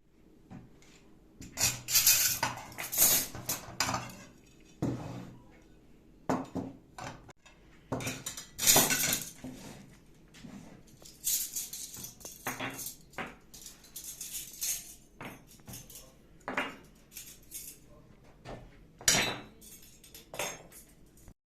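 Irregular clattering and clinking of hard objects: a long run of sharp knocks and rattles with short quiet gaps between them. The sound cuts off suddenly near the end.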